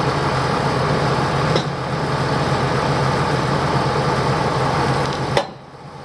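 Tractor engine running steadily at a constant pitch, with a sharp click about five seconds in, after which the sound drops quieter.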